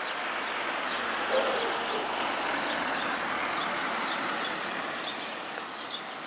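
A small van driving past on the street, its tyre and engine noise swelling to a peak mid-way and then easing off. Small birds chirp over it.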